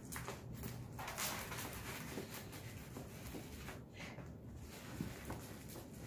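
Diamond painting canvas and its clear plastic cover film rustling as it is rolled up and pressed down by hand, in uneven stretches.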